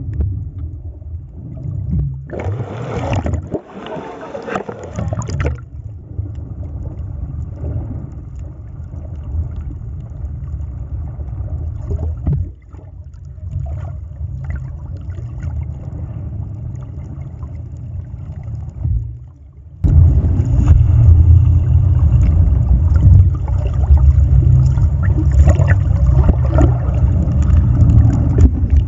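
Water and bubbles heard through a submerged camera: a muffled low rumble with bursts of bubbling hiss near the start. About twenty seconds in, it jumps sharply louder into a dense churning of turbulent water and bubbles.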